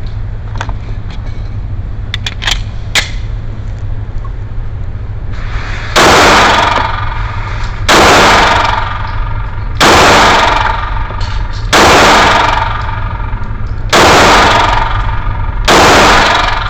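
Glock 19 Gen 6 9mm pistol fired six times in slow fire, about two seconds apart, each shot ringing on for about a second. A few light clicks come before the first shot.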